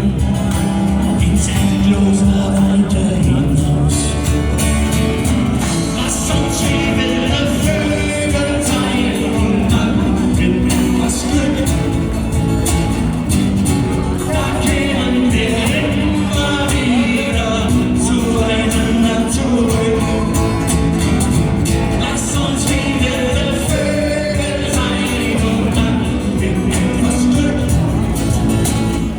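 A band playing a song live, with a steady beat.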